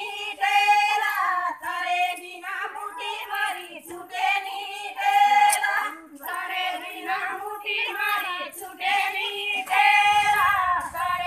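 Women singing a Banjara devotional folk song (bhakti geet), voices only, the melody moving in phrases with short breaths between them.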